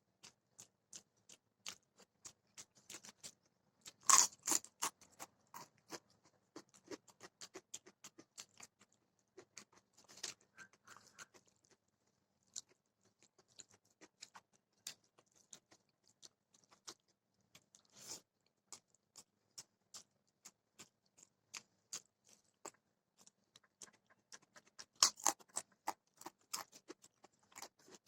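Close-miked chewing of food: a steady run of small mouth clicks and crunches, with louder crunchy bites about four seconds in and again near the end.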